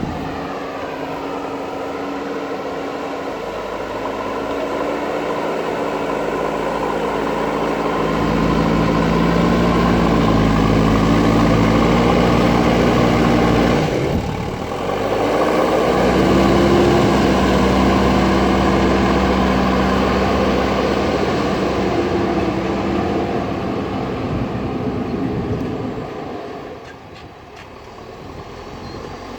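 JCB backhoe loader's diesel engine working under load, revving up about a quarter of the way in, dipping briefly around the middle, then easing back down near the end.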